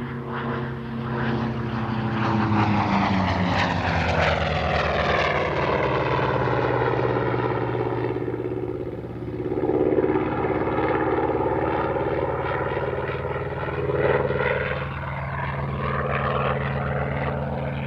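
Vought F4U-7 Corsair's Pratt & Whitney R-2800 radial piston engine running through a display pass. The engine note dips in pitch and then rises again.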